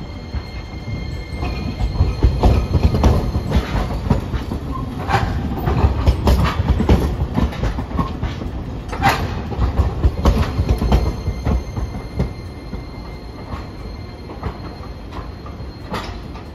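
A Hiroden Green Mover Max low-floor articulated tram (car 5107) rolls slowly past on street-running track. Its wheels rumble and click over rail joints and special trackwork, with short squeals at the flanges about five and nine seconds in. The noise dies down after about twelve seconds as the tram comes to a stop.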